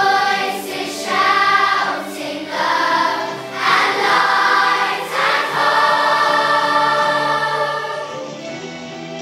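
A large children's choir of about 250 voices singing with musical accompaniment, in short phrases that give way to longer held notes. The singing grows quieter about eight seconds in.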